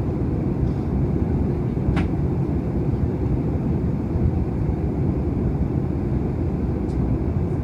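Airbus A319 cabin noise during descent: a steady low rumble of the jet engines and airflow, with a single brief click about two seconds in.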